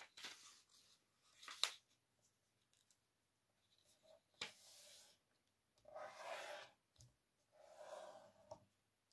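Orange paper being folded by hand on a wooden tabletop: about five short, soft rustles and swipes as the paper slides and the folds are pressed flat.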